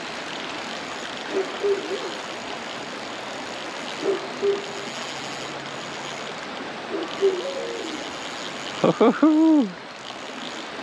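Creek water running steadily. Over it come short low hooting calls in pairs every few seconds, and a louder call with a falling pitch about nine seconds in.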